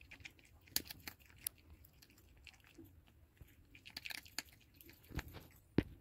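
Small white Shih Tzu–Maltese dog chewing dry kibble, a run of irregular crunches with the loudest near the end.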